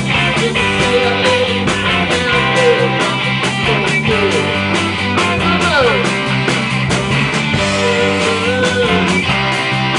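A live rock band playing: electric guitars with bass and a drum kit keeping a steady beat, and a lead guitar line with bent, sliding notes.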